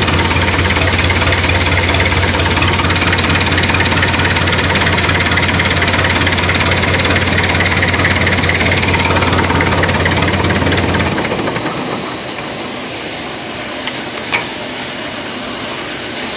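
Rakovica 65 tractor's diesel engine running steadily with a low drone after a sub-zero cold start. The drone stops about eleven seconds in, leaving a fainter hiss, and there is a single sharp click near the end.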